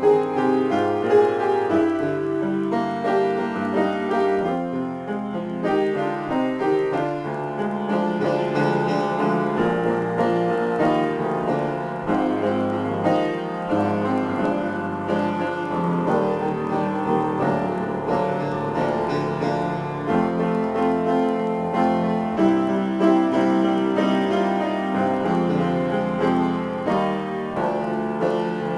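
Upright piano played solo, an improvisation with many notes sounding at once in the bass and the treble, going on without a break.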